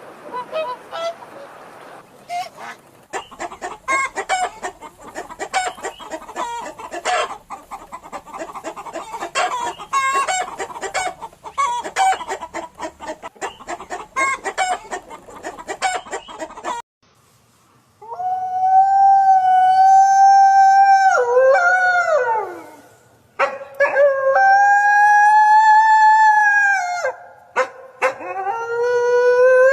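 Chickens clucking in a rapid, choppy chatter. After a short pause come three long drawn-out crows, each held steady and then dropping in pitch at the end.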